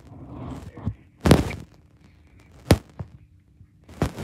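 Handling knocks on the recording phone while a pair of plastic sunglasses is handled right against it: three dull thunks about a second and a half apart, the first the loudest, with a soft rustle before them.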